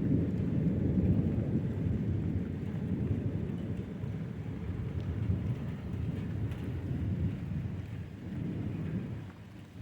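A long roll of thunder: a low rumble that swells in the first second, rolls on, and dies away near the end.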